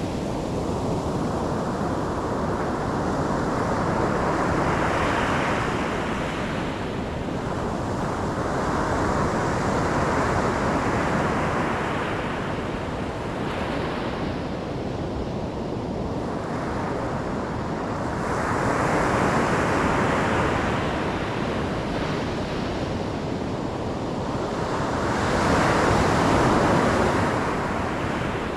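Ocean surf: a continuous rush of waves breaking and washing in, swelling and fading four times.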